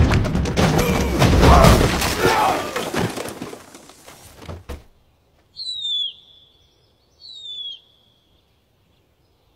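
Loud crashing and clattering of a collapsing wall of concrete blocks and bamboo screen, dying away over about four seconds with a last knock. Then a bird gives two short, high, falling chirps a second and a half apart.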